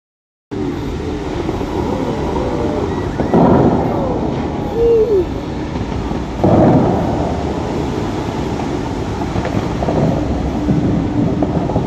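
Bellagio fountain show: a steady rush of spraying water with two loud booms, about three and six and a half seconds in, as the fountain's air-powered shooters fire jets of water high into the air.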